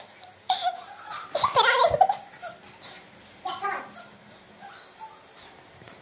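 A young child laughing and squealing in a few short bursts, loudest between about one and a half and two seconds in.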